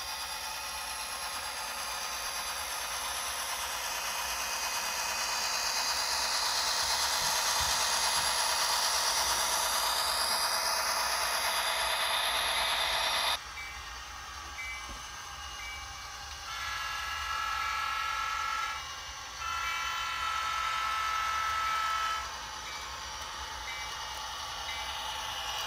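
Train sounds from a model railway: a steady rushing run that grows louder, cut off abruptly about halfway. Then a train horn sounds two long blasts, one right after the other.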